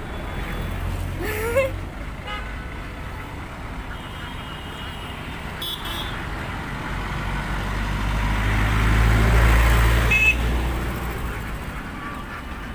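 Road traffic rumble: a vehicle passes, swelling and fading about two-thirds of the way through, with a few short horn toots.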